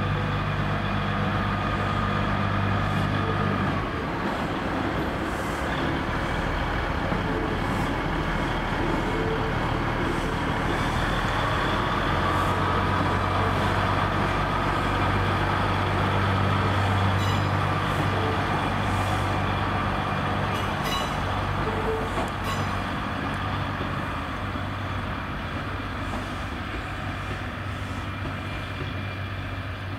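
Northern class 156 diesel multiple unit's underfloor Cummins diesel engines running as the train pulls away. The engine drone eases about four seconds in, builds again around twelve seconds, then fades near the end, with a few light clicks partway through.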